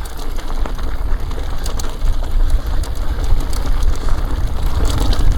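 Wind rumbling on the microphone while an e-bike rides down a rough mountain trail, with rattling and clicking from the bike and the ground under the tyres.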